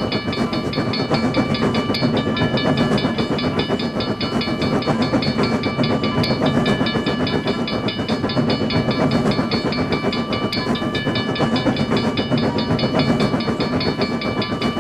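Train sound effect: a train running on the rails, a steady rumble with fast rhythmic clatter, and several steady high-pitched tones held over it throughout.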